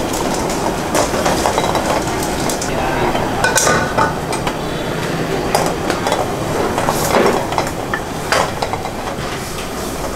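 Gas wok burner running with a steady rush while liquid bubbles hard around prawns in the wok, with scattered metal clinks of the pan and utensils.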